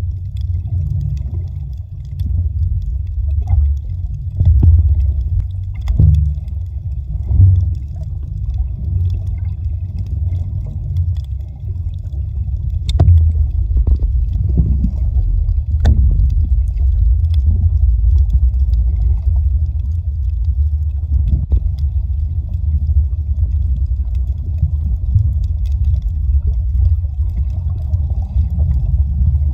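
Muffled low rumble of water moving around the submerged recording phone while snorkelling, swelling and easing, with a few sharp clicks and knocks.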